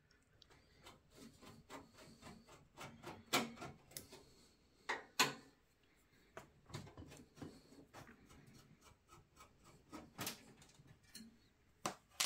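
Hand screwdriver turning screws out of a steel PC case's back panel: faint, irregular scraping ticks with a few sharper metal clicks.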